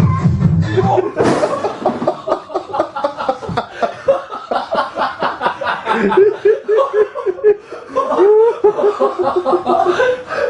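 Dance music cutting off about a second in, followed by hearty laughter: a fast run of laughs for several seconds, then giggles and chuckles that rise and fall in pitch.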